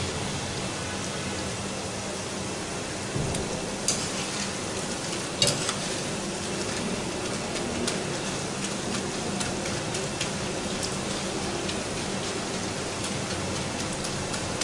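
Small cumin papri crackers deep-frying in hot oil in a steel karahi over a high gas flame: a steady sizzle. From about four seconds in come a few sharp clinks as a wire skimmer stirs and turns them against the pan.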